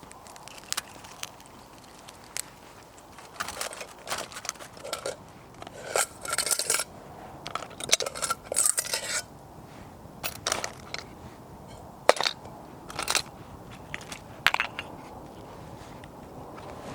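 Dry twigs being snapped and crunched with scraping handling, in irregular sharp cracks and short crackling bursts, as a fire is laid in a small hobo stove.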